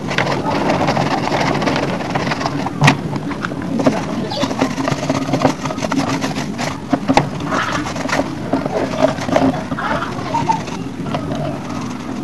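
Wet plastic air-conditioner parts, an air filter and a cross-flow blower wheel, being handled and set down, giving scattered knocks and clicks over a steady low hum.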